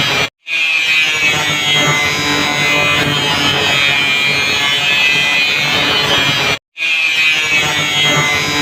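Electric grinder (angle grinder) running and cutting, a steady high whine over a rough grinding noise. The sound breaks off for an instant twice, shortly after the start and about six and a half seconds in.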